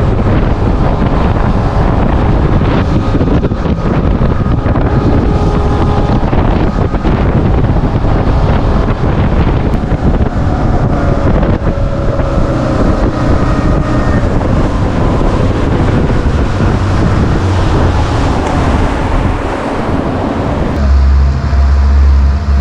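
Wind buffeting the microphone on a moving motorboat, over the boat's engine running at speed with a faint wavering whine. About two seconds before the end, the wind noise drops and a steady deep hum takes over.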